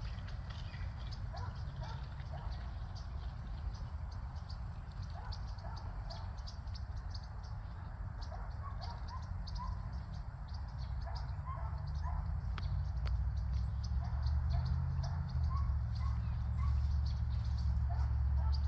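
Short scattered chirps and quick clicks from small animals in a tree, over a low rumble of wind on the microphone that grows louder in the second half.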